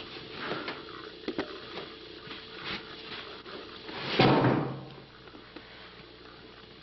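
Handling and movement noise: several light clicks and knocks, then a louder scraping rustle about four seconds in, over a faint steady hum.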